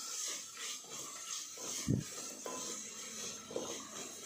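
Sliced onions sizzling in ghee and oil in a pressure cooker while a wooden spatula stirs and scrapes through them, with one dull knock about two seconds in.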